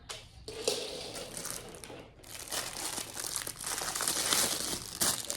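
Plastic toy packaging crinkling as it is handled and opened, a dense crackle that is fainter at first, pauses briefly about two seconds in, then carries on louder.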